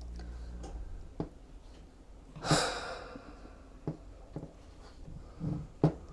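Scattered small clicks and taps, like parts and tools being handled, with one louder breathy puff about two and a half seconds in.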